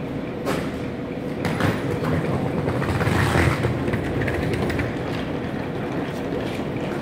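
IC2 double-deck intercity train with its class 146 electric locomotive standing at the platform: a steady hum, with a couple of clicks in the first two seconds and a louder rumble about three seconds in.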